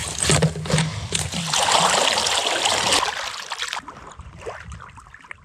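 Water splashing and sloshing against a kayak, loudest for the first three seconds, then dying down.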